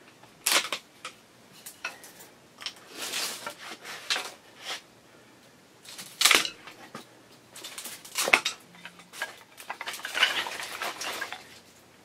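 Small tree branches being cut to length by hand. Three sharp snaps as the cuts go through, with longer rough noise of the wood being worked around three seconds in and again near the end.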